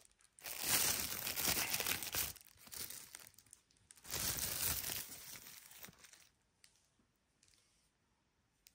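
Packaging crinkling and rustling as it is handled, in three bursts over the first six seconds or so, then it goes quiet.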